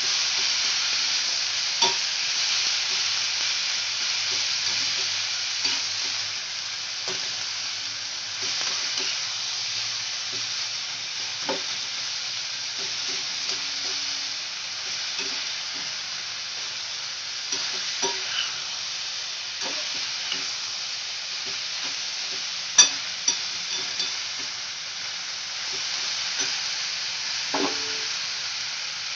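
Onions, tomatoes and coriander stems frying in oil in a metal kadhai with a steady sizzle, stirred with a metal spatula that scrapes and taps against the pan now and then. One sharp tap about three-quarters of the way through is the loudest sound.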